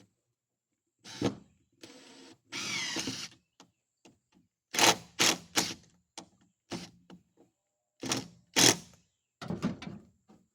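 Power drill driving screws into cypress boards: one run of nearly a second as the motor winds up, then about six short, loud bursts as the screw is driven home.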